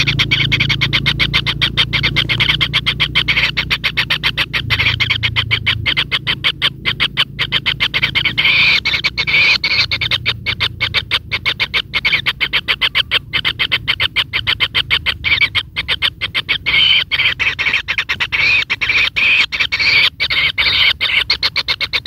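White-throated kingfisher nestlings calling in the nest burrow: a fast, rattling run of many short notes a second that swells louder in spells, over a low steady hum.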